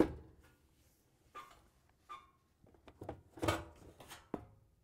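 Dishwasher's stainless steel outer door panel being pulled down and off the door: a sharp click at the start, a couple of small knocks, then a cluster of metal knocks and rattles about three to four and a half seconds in.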